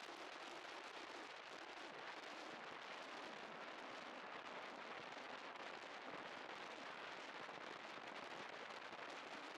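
Wind rushing over the microphone of a chest-mounted camera on a moving scooter: a steady hiss with a fine crackle and no clear engine note.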